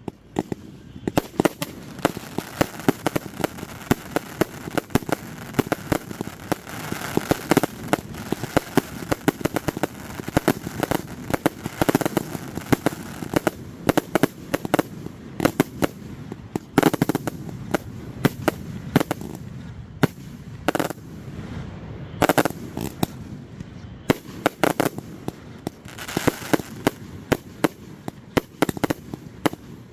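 Fireworks display firing steadily: a dense, unbroken run of sharp bangs, several every second, over a continuous background rumble.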